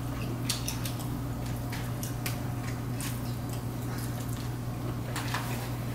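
Forks clicking and scraping on plates in short, scattered clinks as people eat, over a steady low hum.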